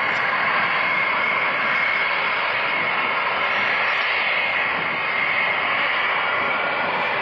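Concorde's Olympus 593 turbojet engines running at high power as the airliner rolls down the runway for takeoff: a steady rushing jet noise. The old recording sounds dull, with no highs.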